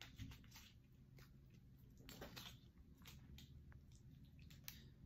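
Near silence, with faint scattered clicks and soft squishing of a plastic spoon stirring and pressing croutons down into soup in a plastic container.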